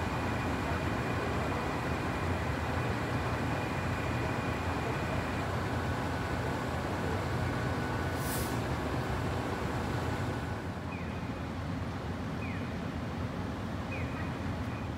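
Steady rumble of street traffic and engines. A short high hiss comes about eight seconds in, and three brief falling chirps come near the end.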